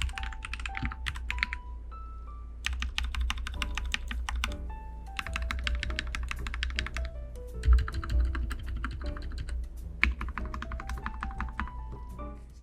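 Typing on a Royal Kludge RK100 mechanical keyboard with red linear switches: rapid runs of key clacks in five bursts with short pauses between them, and a heavier low thump about eight seconds in.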